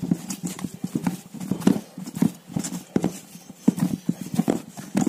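Hand mixing and kneading stiff wholewheat and oat dough in a stainless steel bowl: an uneven run of short thumps and knocks, several a second, as hand and dough strike the bowl.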